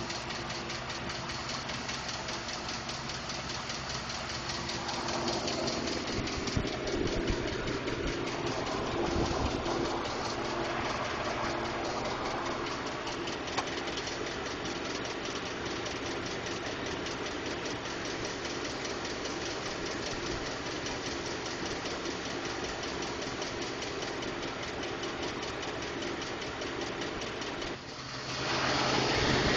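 A 2012 Ford F-150's 5.0L V8 running with a fast, steady ticking, which Ford has diagnosed as normal. Near the end the sound dips briefly and a louder, steady rushing noise takes over.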